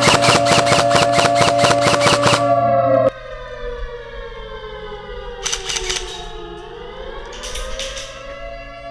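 Siren wail with a steady pitch and sharp clicking pulses about five a second, which cuts off suddenly about three seconds in. A siren tone then winds slowly down in pitch and back up again, with two short noisy bursts along the way.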